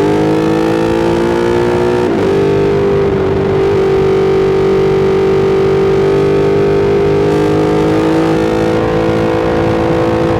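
Ducati Streetfighter V2's twin-cylinder engine running through an Austin Racing aftermarket exhaust while riding at a steady pace. The pitch dips and picks up again about two seconds in, like a gear change, then holds nearly steady.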